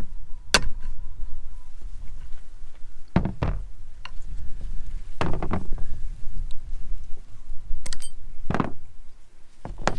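Hammer striking a screwdriver to knock the retaining C-clips off a Toyota driveshaft's universal joint: several sharp metal blows, spaced unevenly, some in quick pairs.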